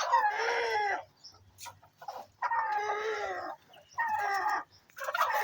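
Chickens calling: loud, drawn-out calls about a second long each, sagging slightly in pitch, three in a row with a fourth starting near the end.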